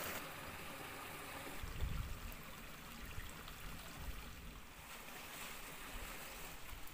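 Shallow rocky stream trickling in a steady hiss, with a few soft low bumps.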